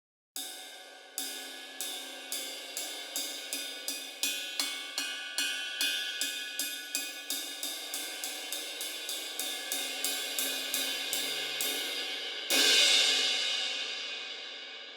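SABIAN HH 18-inch suspended cymbal struck with a drumstick: a run of light strikes that start slow and quicken to about three a second, moving across the bow and cup, then one loud crash on the edge about three-quarters of the way through that rings on and slowly fades.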